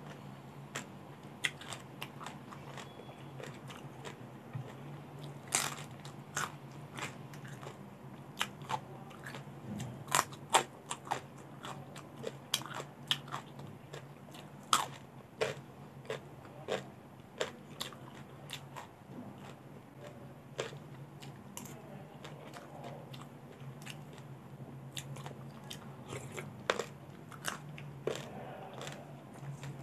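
Close-miked biting and chewing of crisp raw vegetables: irregular sharp crunches, several a second at the busiest, over a low steady hum.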